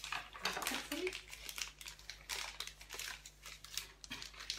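Cheese wrapper crinkling as it is unwrapped and handled, in an irregular run of sharp crackles.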